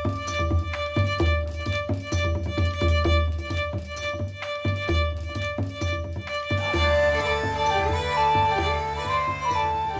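Background music: sustained tones over an even beat, the beat dropping out about two-thirds of the way through as a moving melody carries on.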